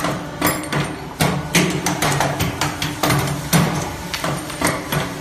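Automatic wire forming machine running: its tool slides clack and knock several times a second as it feeds and bends steel wire, over a steady motor hum.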